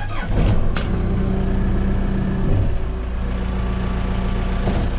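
Case 580 Super M backhoe's diesel engine starting just after the start and settling into a steady idle, heard from inside the cab.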